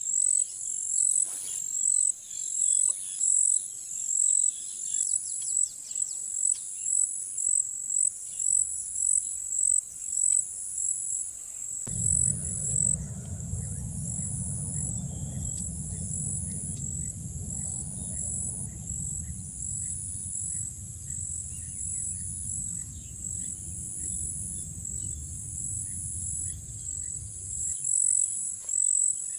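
Insects trilling in a loud, high chorus that pulses evenly about one and a half times a second. Under it, a steady low rumble runs from a little before halfway until near the end.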